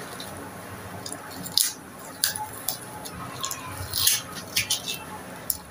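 Paper masking crinkling and rustling in short, irregular scrapes as it is pulled off and rubbed against an overlock sewing machine after spray-painting.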